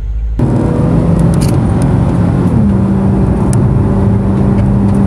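Nissan 370Z's 3.7-litre V6 heard from inside the cabin, running steadily at cruise, its pitch stepping up a little about halfway through.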